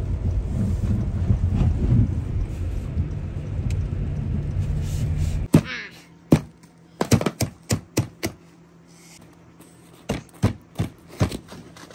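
Steady low rumble of a snowplow truck on a slushy road, cutting off abruptly about five seconds in. Then a string of sharp knocks and clacks as mittened hands knock ice cubes and ice blocks against each other and the play tray.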